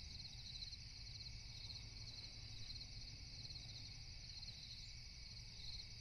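Faint night-time insect chorus: crickets trilling steadily in fine rapid pulses, over a low hum.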